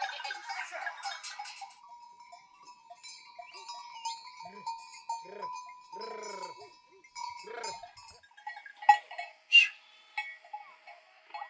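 Bells on a herd of goats ringing and clanking steadily, with goats bleating about four times in the middle and two loud bell clanks near the end.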